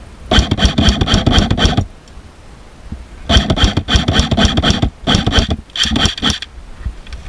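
Airsoft gun firing on full auto in four bursts of rapid clicks: a burst of about a second and a half, then after a pause a second long burst and two short ones close together.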